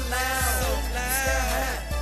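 Hip hop beat with deep bass notes that slide down in pitch, high hi-hat strokes and a melodic line bending in pitch above them.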